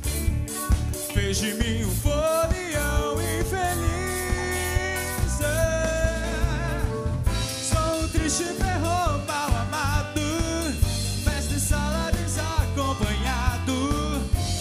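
Live pop-rock band playing: drum kit with a snare backbeat, bass and guitars, with a wavering lead melody over them.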